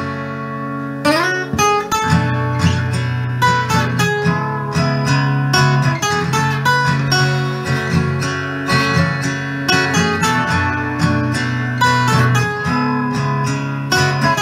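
Acoustic guitar playing an instrumental break between sung verses: a chord rings for about a second, then a run of quick picked notes over strummed chords.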